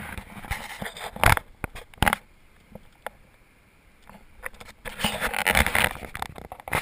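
Handling noise from a handheld camera being moved about: scraping and rubbing on the microphone with sharp knocks at the start. It is quieter in the middle and turns into denser rustling near the end.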